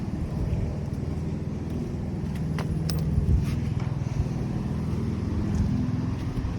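A steady low engine-like hum, with a few light clicks a little after halfway.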